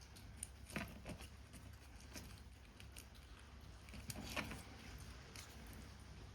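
Paper-craft work sounds: scattered light clicks, taps and rustles of paper and small tools, a handful of faint strokes with a small cluster about four seconds in, over a steady low hum.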